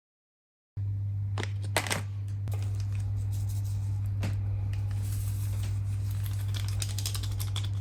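Small clicks and rustles of hands handling kitchen items, over a steady low hum that cuts in suddenly about a second in.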